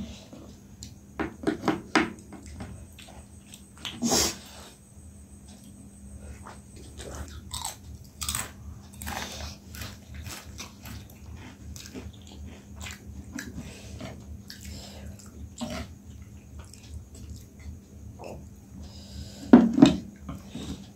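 Eating sounds: instant noodles being chewed and slurped, with scattered clicks of chopsticks and a fork against plates. A sharper burst comes about four seconds in and a louder one near the end.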